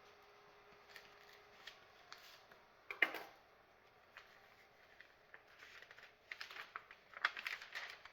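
A shipping package being opened and handled by hand: scattered clicks and crinkles, a sharp snap about three seconds in, then denser rustling of packaging near the end.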